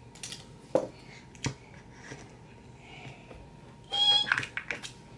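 A short, high-pitched meow-like call about four seconds in, preceded by a couple of faint clicks.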